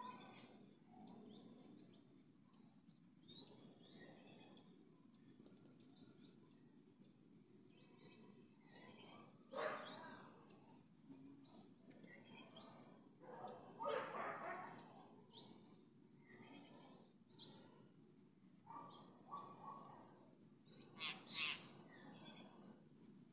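Wild birds chirping and calling outdoors: many short, high chirps throughout, with a few louder calls about a third of the way in, near the middle and near the end. A faint, rapid high pulsing runs steadily underneath.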